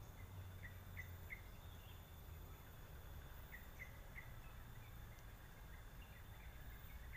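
Faint swamp ambience: short high chirps, repeated in clusters of two or three every second or two, over a thin steady high whine and a low rumble.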